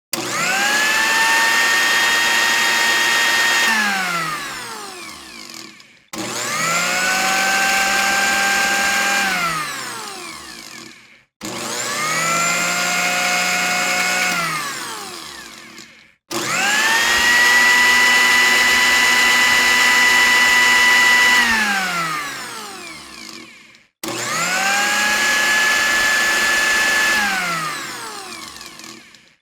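Kitchen blender motor switched on five times. Each run whirs up quickly to a steady high whine, holds it for a few seconds, then winds down with falling pitch once it is switched off.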